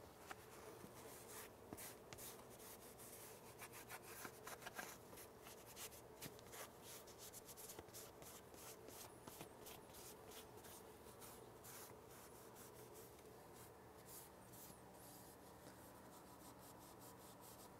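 Faint rubbing and wiping of a ceramic-coating applicator pad over a brake caliper and rotor, a quick run of short strokes that thins out in the last few seconds.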